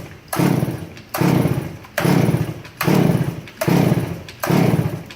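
Stihl 461 two-stroke chainsaw running after being crushed by a log, revving up sharply and dropping back about once every 0.8 s. The crew takes it to be flooding out.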